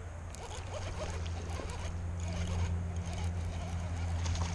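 Fishing reel being cranked while a hooked bass is reeled in to the bank: a steady low whir with many small clicks.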